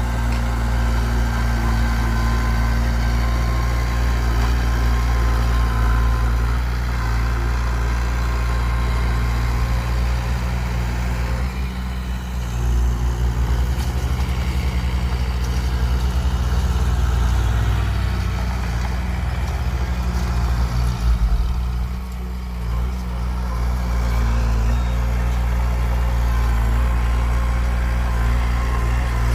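Heavy diesel engine of an excavator or dump truck running steadily at a low, even speed. The sound eases off briefly twice, about twelve and twenty-two seconds in.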